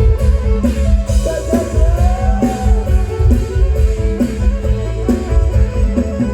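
Live band music: electric guitar and drum kit over a heavy, pulsing bass, with a gliding melody line about two seconds in.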